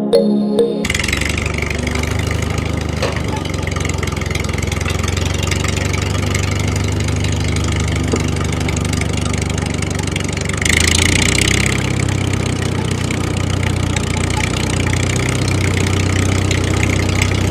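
Small motor of a homemade mini tractor running steadily. It briefly runs louder and higher about eleven seconds in, then settles back.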